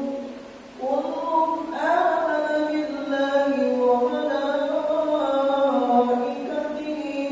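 An imam chanting Quran recitation in a melodic male voice, with long held notes that glide between pitches. He pauses for breath just under a second in, then resumes.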